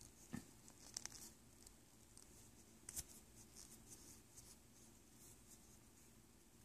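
Near silence with a few faint, short clicks and rustles of a small cosmetic product and its packaging being handled, the sharpest about three seconds in.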